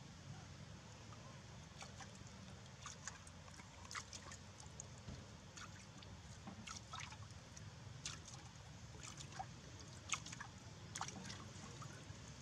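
Macaques drinking from a clay water jar: faint, irregular small splashes and lapping sounds at the water's surface.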